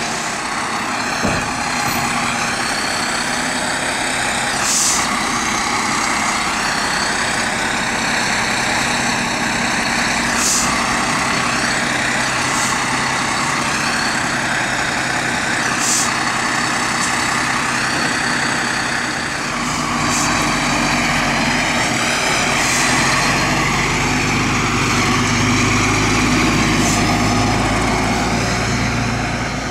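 Dennis Sabre fire engine's diesel engine running at idle, with brief hisses of air every five or six seconds. From about twenty seconds in the engine note grows heavier and louder as the appliance moves off.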